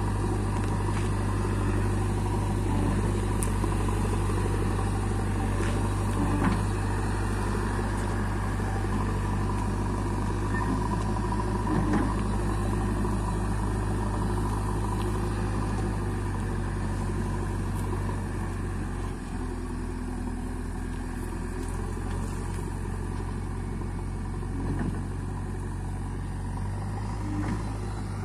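JCB backhoe loader's diesel engine running steadily while the backhoe arm digs and drags soil, with a few brief knocks. The engine note shifts and drops a little about two-thirds of the way through.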